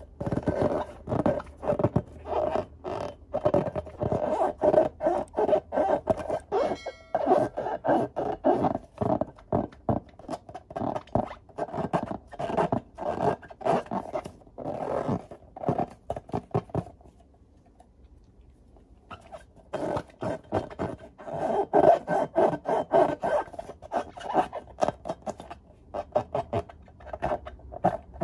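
Hands rubbing and squeezing filled latex balloons: quick runs of rubbery scraping strokes with a short high squeak, broken by a pause about two-thirds of the way through.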